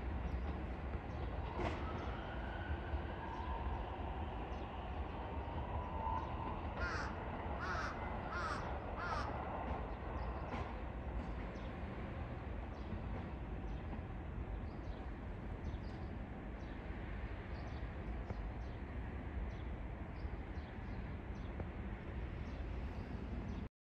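A crow cawing four times about seven to nine seconds in, over a steady low rumble of a train running off into the distance.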